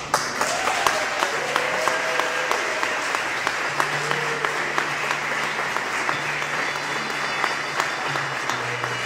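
Wedding congregation applauding steadily, with a cheer in the first few seconds and a low held tone underneath.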